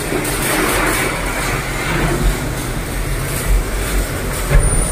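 Electric arc welding inside an enclosed steel tank: a steady crackling hiss over a low rumble.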